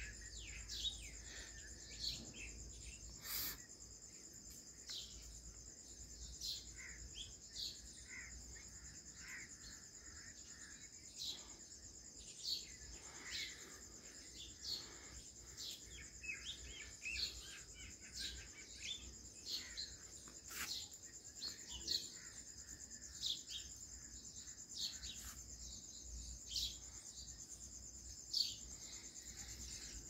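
Birds chirping, short falling calls repeated every second or so, over a steady high-pitched drone of insects such as crickets.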